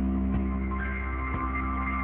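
Instrumental background music: steady, held chords.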